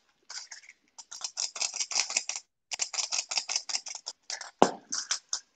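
Spatula stirring and scraping around a stainless steel mixing bowl of chopped tomatoes, in quick, short strokes several times a second with a brief pause partway through.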